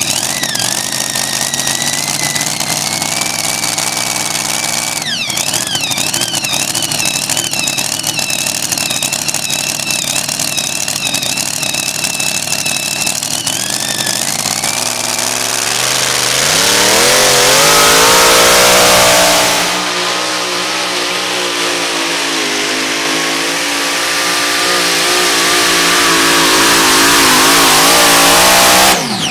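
Supercharged engine of a super modified pulling truck idling steadily, then revving up hard about halfway through as the truck launches down the track. The revs dip briefly, then climb slowly while held at full throttle through the pull, and cut off suddenly near the end.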